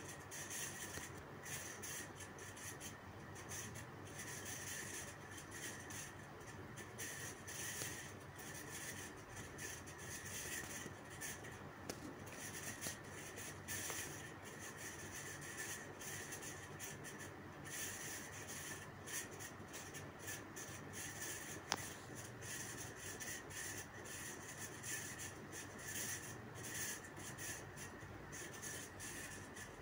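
Flat metal spatula scraping and stirring garlic cloves, chillies and whole spices frying in mustard oil in a kadhai on a slow flame, with a faint steady sizzle. A single brief ping about two-thirds of the way through.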